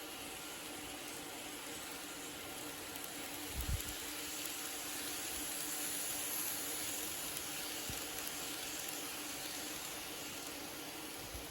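N-gauge model of a 285 series Sunrise Express train running on its track: a steady, hissing rolling noise that swells and then fades as the train passes closest, about halfway through. A few faint low thumps come through it.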